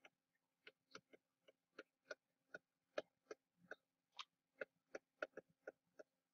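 Irregular series of short, sharp clicks, about three a second, from a stylus tapping a pen tablet as words are handwritten.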